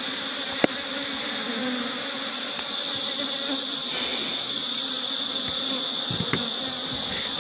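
Honeybees buzzing steadily around an open hive, with a thin steady high tone underneath. There is a single sharp click about half a second in.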